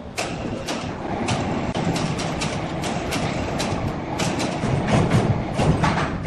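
Overhead crane lifting and turning a heavy squared timber beam on its slings: a steady low mechanical rumble with irregular clicks and knocks, growing louder near the end.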